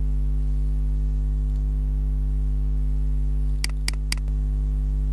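Steady electrical hum, low and buzzy with several steady tones stacked above it. About three and a half seconds in, three quick computer mouse clicks come in a row.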